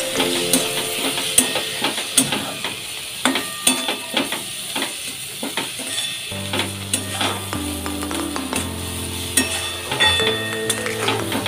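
Steel spatula stirring and scraping egg bhurji around a hot pan, with frequent sharp clicks against the metal over a steady sizzle of frying. Background music with held low notes comes in about six seconds in.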